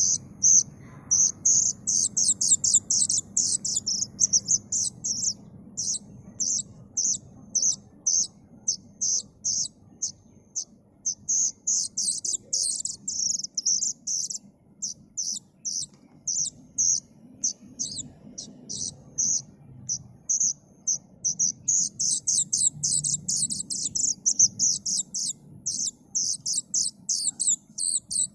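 Plaintive cuckoo (kedasih) chick calling: a steady run of short, high-pitched chirps, two or three a second, quickening into faster runs about two seconds in, around twelve seconds in, and again from about twenty-two to twenty-five seconds.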